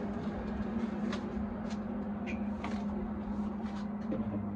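A steady low motor drone, with a few faint clicks and taps over it.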